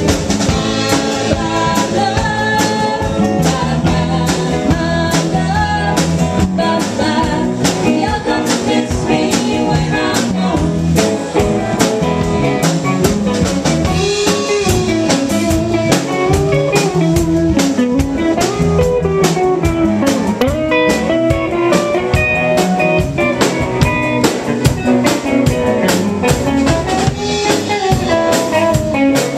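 Live blues-rock band playing an instrumental passage: electric guitar carrying a wavering lead line over bass and a drum kit, with a steady beat.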